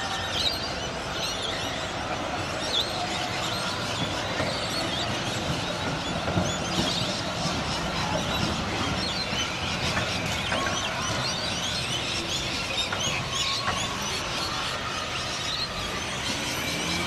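Dense chattering of many birds, a constant mix of short chirps and whistles, over the low steady rumble of passing trams and street traffic.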